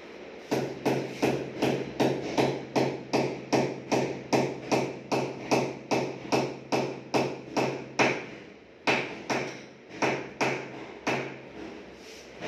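Hammer blows struck in a steady rhythm, about two to three a second, with a brief pause about eight seconds in before a few more blows.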